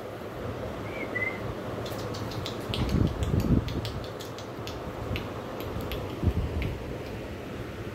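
Kittens playing on a hard floor: scattered light clicks and a few dull thumps over a steady low rumble, with a brief high chirp about a second in.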